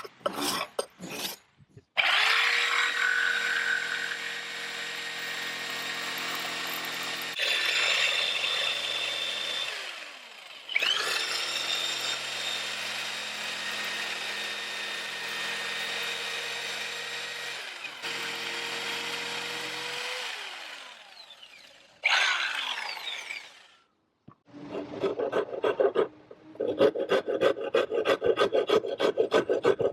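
Angle grinder running in three bursts, a steady whine that winds down in pitch each time it is switched off. After the last burst come quick, even hand-filing strokes, several a second.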